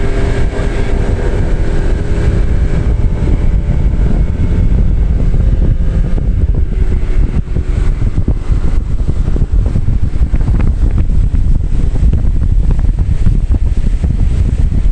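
Heavy wind buffeting the microphone as a fishing boat runs across open water, with the boat motor's steady hum heard under it for the first few seconds before the wind covers it.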